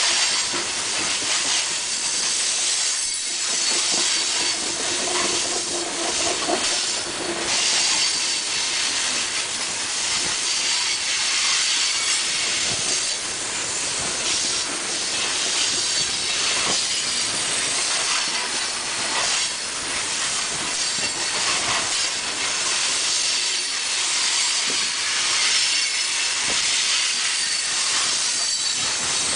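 Freight train hopper cars rolling past close by: a steady hiss and rattle of steel wheels on rail, with scattered clacks as the wheel trucks pass over the rail. A brief wheel squeal comes in about five seconds in.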